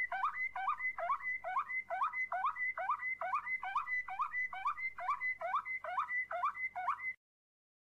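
Canary song from a training recording in the flute-like 'flauta' style: one low whistled note sweeping down and up, repeated a little over twice a second over a thin steady high tone. It cuts off suddenly near the end.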